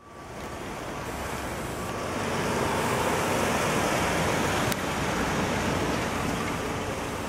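1973 Cadillac Fleetwood Brougham with its 472 V8 driving slowly past across pavement: an even rush of engine and tyre noise that fades in at the start and is loudest in the middle.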